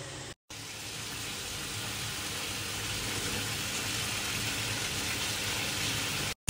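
Tap water pouring into a steel bowl of rice as it is washed: a steady splashing hiss that grows slowly louder as the bowl fills.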